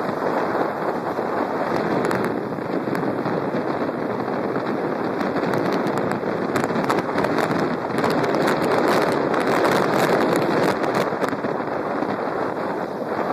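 Wind rushing over the microphone of a moving scooter, a steady rough noise, with a run of crackling pops in the middle.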